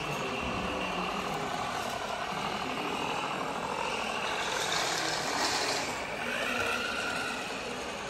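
Radio-controlled model vehicles running over a steady hall background, with a short hiss about halfway through.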